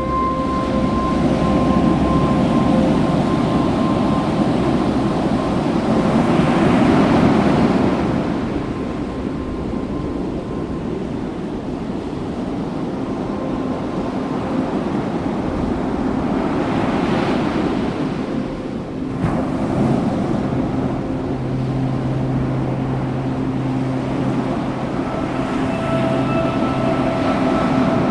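Ocean surf washing onto the beach, with two louder surges, one early and one past the middle, and wind on the microphone. Soft, steady held notes of background music run underneath.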